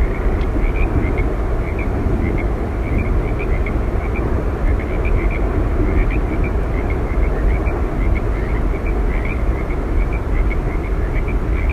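Steady roar of Yosemite Falls, an even rushing noise with no breaks, with faint short high chirps dotted through it.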